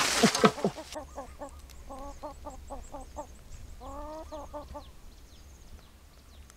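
A white chicken clucking in short, rapid strings of clucks that fade toward the end. The first second holds a loud rustle that stops abruptly.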